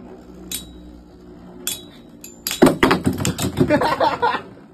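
Metal battle tops spinning in a clear plastic stadium and clacking against each other and the rim. There are a couple of single clicks, then a rapid run of collisions for about two seconds from about halfway in, over a low steady hum.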